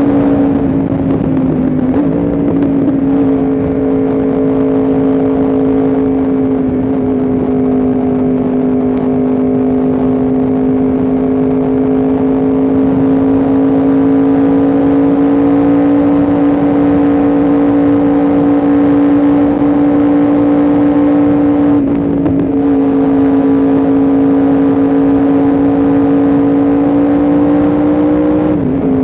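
Yamaha R1M's crossplane inline-four engine running at steady high revs under way, its note climbing slowly. The note dips briefly about two seconds in, again about twenty-two seconds in, and once more near the end, over a steady rush of wind and road noise.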